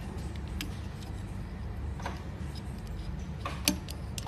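Light scattered clicks and ticks of a screwdriver and wire being handled at a plastic screw-terminal block, the sharpest about three and a half seconds in, over a steady low hum.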